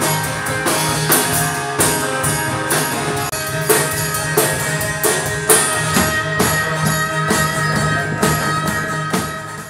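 A live band plays an instrumental passage: acoustic guitar over a drum kit with cymbal hits in a steady beat, without singing. The level dips briefly near the end.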